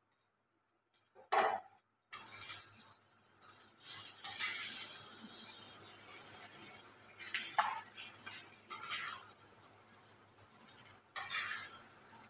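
Chow mein noodles sizzling in hot oil in a wok as a metal spatula scrapes and clinks against the pan, stirring and tossing them. The sizzle starts about two seconds in, just after a single knock, and the spatula strikes recur every few seconds, with the sharpest near the end.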